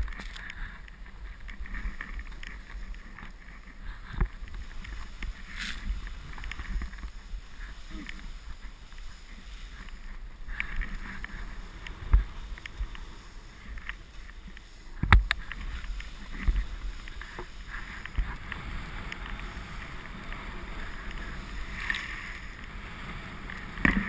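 Snowboard riding through deep powder: a steady rush of wind and spraying snow on the pole-mounted GoPro's microphone, broken by occasional sharp knocks, the loudest about fifteen seconds in.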